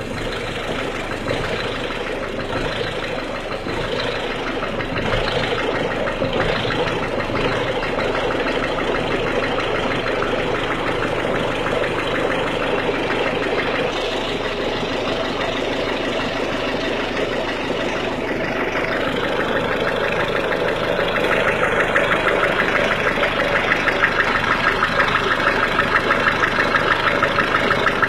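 1.6 HDi diesel engine idling cold with a clattering knock, an annoying noise whose cause is the question. It grows a little louder and more sharply pulsed about twenty seconds in.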